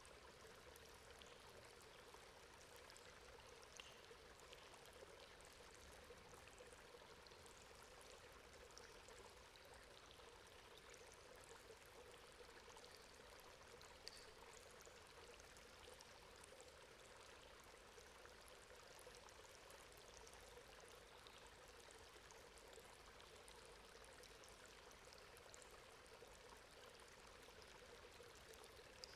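Water running from a metal grate: a faint, steady rush of flowing water with a few small drip ticks scattered through it.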